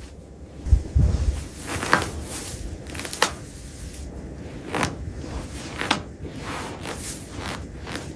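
A series of irregular knocks and crunches. Two low thumps come within the first second, then about six sharp clicks follow at uneven intervals over a steady background noise.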